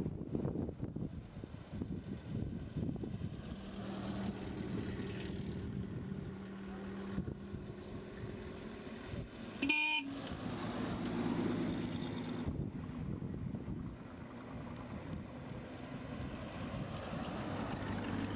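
Vintage cars passing slowly one after another, engines running with road and tyre noise. About halfway through, one car gives a single short horn toot, the loudest sound here.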